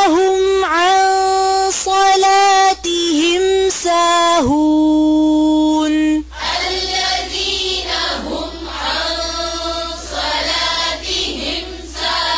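Melodic Quran-style recitation: for about the first six seconds a single high voice chants in long held notes with dips in pitch, then a group of voices chants together.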